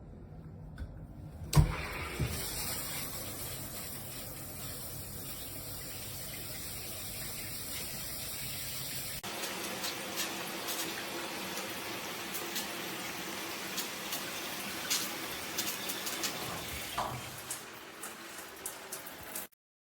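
Filtered shower head spraying water in a steady hiss, after a thump about one and a half seconds in. About halfway through the spray changes abruptly, with many small taps and splashes in it.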